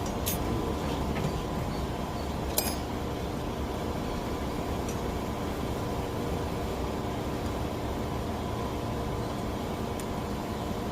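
Welding equipment running with a steady hum and hiss, and two sharp clicks in the first few seconds.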